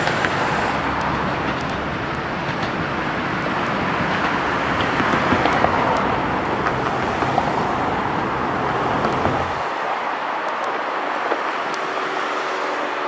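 Steady rushing noise of vehicles going by, heard as road traffic; the low rumble drops away sharply about ten seconds in.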